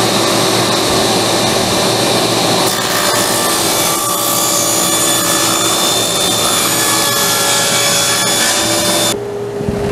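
Table saw cutting lengthwise through a thick old wooden board, the blade cutting steadily through the wood. The cut grows harsher about three seconds in, and about a second before the end the cut finishes, leaving the saw running more quietly.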